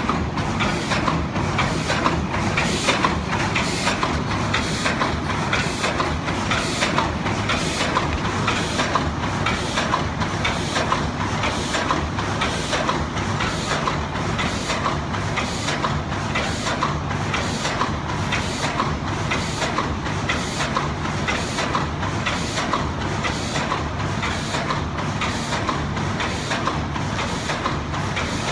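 ZBJ-NZZ middle-speed paper cup forming machine running, its mechanism clacking in an even rhythm of about one stroke a second over the steady hum of its drive motor.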